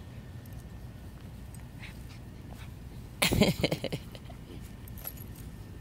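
Eight-week-old puppy letting out a short burst of rapid yips and whimpers about three seconds in, while play-mouthing a hand during a belly rub.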